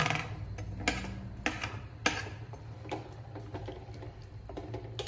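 A metal ladle clinking against a ceramic plate and a steel pot as potato cubes are scraped into the pot and stirred: a handful of sharp, separate clinks over a low steady hum.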